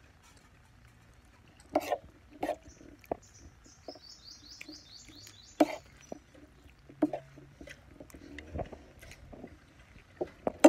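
A metal spoon knocking and scraping on a plastic plate during a meal: a handful of separate sharp clinks. Between them, a bird gives a quick run of about a dozen short high chirps.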